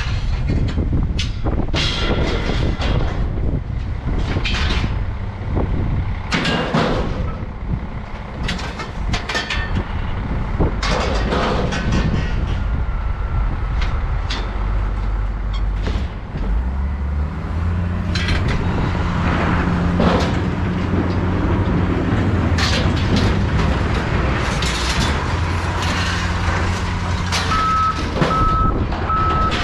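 A heavy truck or loader engine running, with many clanks and crashes throughout. About halfway through, the engine settles into a steady drone. Near the end, a reversing alarm starts beeping at an even pace.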